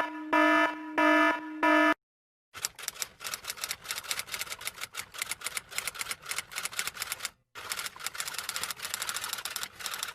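Cartoon sound effects: a few short pitched electronic beeps, then after a brief pause a long run of rapid clicks, several a second, like fast typing, broken by a short gap past the middle.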